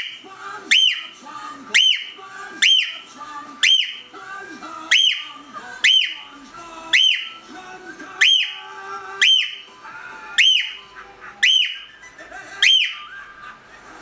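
Cockatiel repeating a loud, shrill whistled call about once a second, each note sweeping up and then dropping back.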